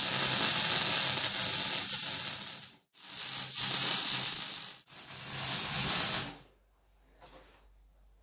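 Welding arc crackling and hissing in three runs, about three, two and one and a half seconds long, with short breaks between as the trigger is released; the arc stops a little after six seconds in.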